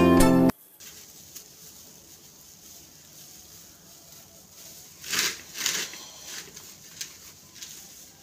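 Background music cuts off sharply half a second in. Then comes faint rustling of dry straw as a hand works inside a straw nest in a plastic basket, louder for a moment about five seconds in.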